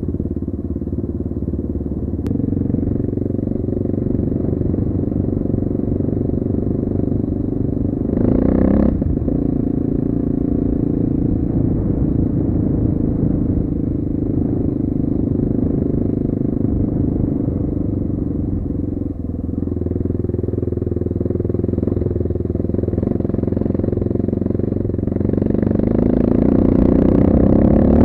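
Dirt bike engine running steadily while being ridden, with a brief louder burst about eight seconds in and the engine revving up near the end.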